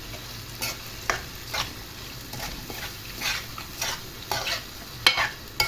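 Prawns frying in curry-spiced oil, sizzling steadily, while a utensil stirs and scrapes them around the pan in irregular strokes, one or two a second, the sharpest near the end.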